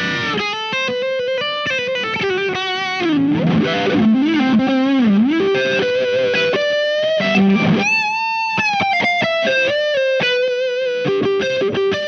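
Electric guitar with humbuckers played through the distortion (Hyde) side of a Visual Sound Jekyll & Hyde V1 overdrive/distortion pedal. It plays single-note lead lines with held notes, string bends and vibrato.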